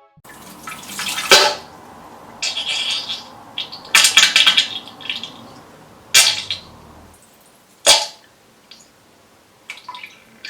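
Diarrhoea sound effect: a series of wet, spluttering bursts with splashes of water, about six in all. The strongest come about a second in and about four seconds in, with sharper short ones later and quieter ones near the end.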